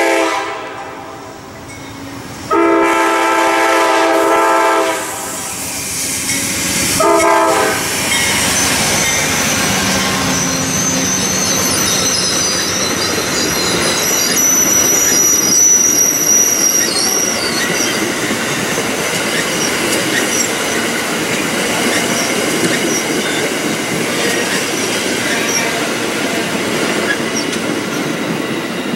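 Amtrak passenger train's diesel locomotive air horn sounding a crossing pattern: a blast dying away at the start, a long blast, then a short one. The train then passes close by with a steady rush of wheels on rail, and a thin high wheel squeal runs for several seconds in the middle.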